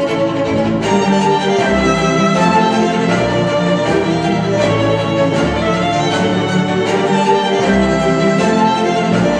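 Cinematic classical music with bowed strings, played back through KEF R3 bookshelf speakers. The sound grows fuller about a second in.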